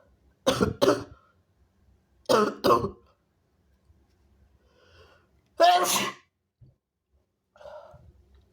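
A person sneezing hard several times: a quick pair about half a second in, another quick pair around two and a half seconds, and a single longer, louder sneeze about six seconds in, followed by a softer sound near the end.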